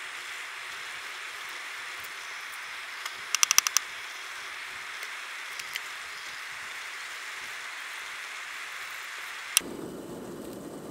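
Pot of water boiling hard with an egg poaching in it: a steady bubbling hiss. A quick run of sharp clicks comes about three and a half seconds in, and one more click comes near the end.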